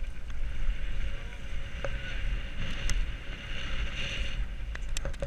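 Wind buffeting a helmet-mounted camera on a mountain bike descending a dirt trail at speed, with the tyres rolling and scrubbing over loose dirt. A few sharp clicks and rattles from the bike.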